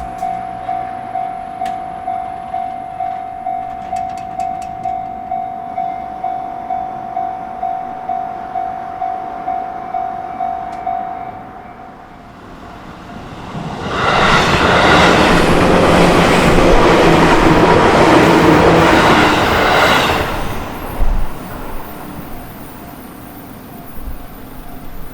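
Japanese level-crossing alarm bell dinging about twice a second, stopping about eleven seconds in. After a short lull an electric train passes loudly for about six seconds, followed by a single sharp click.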